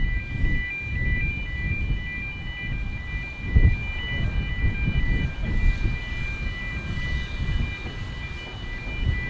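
Road level-crossing warning alarm sounding a repeating pattern of high beeping tones, warning traffic of an approaching narrow-gauge steam train. An uneven low rumble runs underneath, with a brief low thump about three and a half seconds in.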